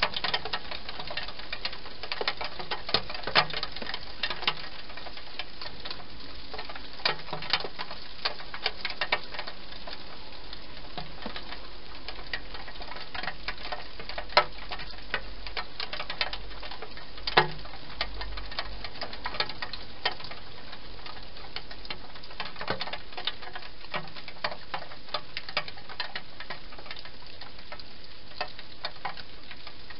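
Hedgehog eating from a dish inside a plastic feeding box: irregular small crunching clicks over a steady hiss.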